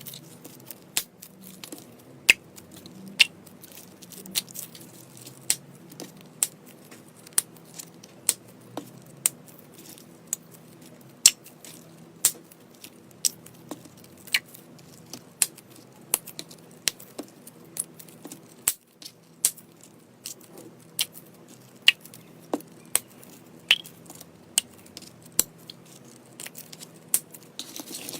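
Slime being squeezed and pressed by hand, making sharp sticky pops and clicks at an irregular pace of roughly one or two a second.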